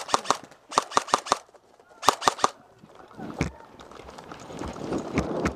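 Airsoft guns firing in short rapid bursts of several shots each, followed by a rougher, noisier stretch with scattered pops.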